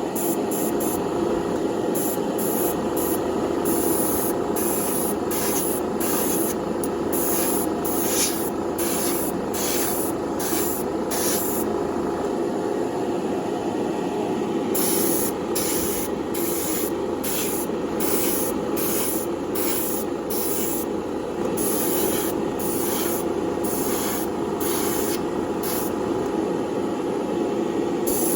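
Airbrush spraying paint in many short hissing bursts, with a few longer passes, over a steady background hum. It is laying down a light tack coat of Spectraflame yellow.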